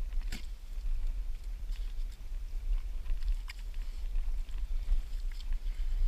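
Gloved hands scraping and digging in wet sand and pebbles down a clam hole, a few short gritty scrapes, the sharpest about a third of a second in, over a steady low rumble on the microphone.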